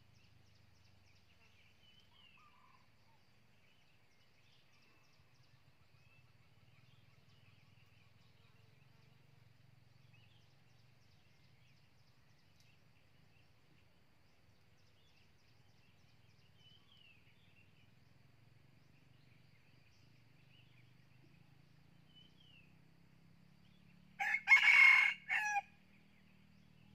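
Red junglefowl cock crowing once near the end, a short crow broken into three parts, over faint chirping of small birds.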